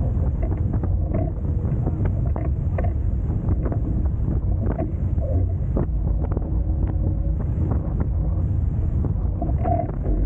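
Wind buffeting the microphone over water rushing past the hulls of a Hobie Tiger F18 catamaran under sail at speed, with frequent small splashes and slaps.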